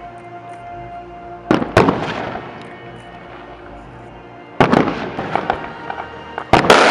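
Fireworks display: sharp aerial shell bursts about a second and a half in, again past four and a half seconds, and a quick cluster near the end, each followed by crackling, with steady music playing underneath.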